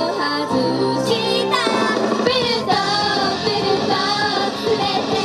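Japanese idol pop song performed live: a girl's singing voice over a loud, bleepy synth-and-rock backing track through a PA.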